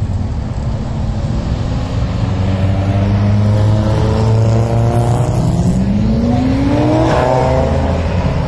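Car engines running, one of them revving up and rising in pitch from about five and a half seconds in to about seven seconds in as a car accelerates away.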